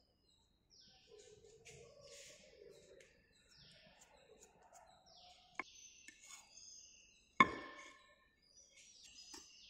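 Hand tools working a sand mould: light, intermittent scraping and handling noises, a sharp click about five and a half seconds in, and a louder metallic knock that rings briefly about seven and a half seconds in.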